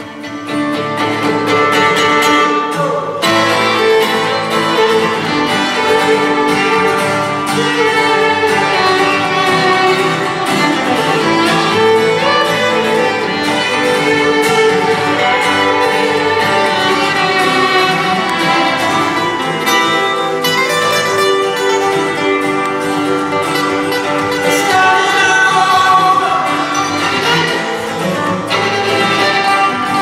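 Live acoustic band music: a bowed violin carrying the melody over a strummed acoustic guitar. The band fills out about three seconds in.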